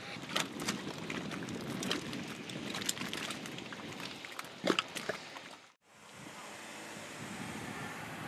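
Geothermal mud pot bubbling: irregular plops and pops of bursting mud bubbles over a steady rushing noise. Almost six seconds in the sound cuts out briefly and gives way to a steady rushing background with no pops.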